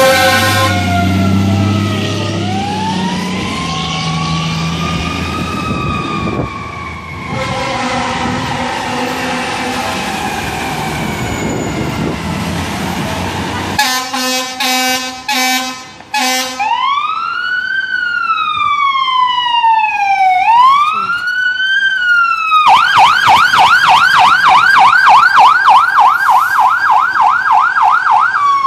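Fire truck sirens on a departing response. First a siren winds up and then slowly falls away as an engine drives past. Then come a few short horn blasts about fourteen seconds in, followed by a siren wailing up and down that switches to a fast yelp about twenty-three seconds in and back to the wail near the end.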